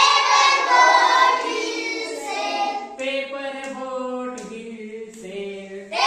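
A group of young children singing an action rhyme in unison, loudest at the start and softer in the middle.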